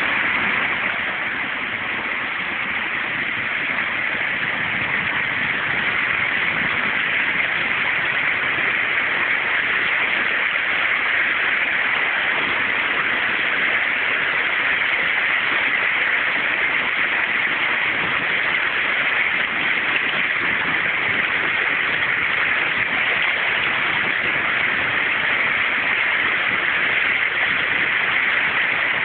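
Shallow river water rushing and splashing steadily over and between the stepping stones of a river crossing, an even hiss with little change.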